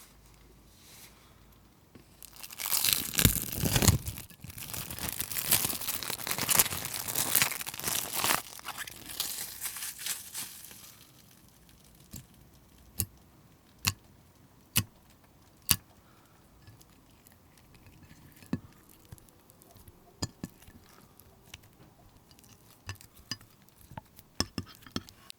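Packaging crinkling and tearing for about eight seconds, then several separate sharp clicks.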